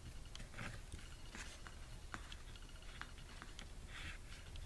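Faint rustling and scattered light ticks of embroidery floss being handled and pulled into knots by hand, with a short scratchy brushing sound about four seconds in.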